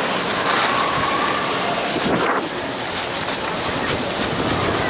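Skis sliding over packed snow, a steady rushing hiss, mixed with wind buffeting the microphone of a camera carried downhill by a skier.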